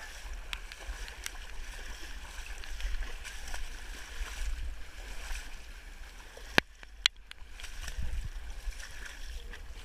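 Runners wading and splashing through shallow muddy floodwater, with a steady low rumble of movement on the microphone. Two sharp knocks come about two-thirds of the way through.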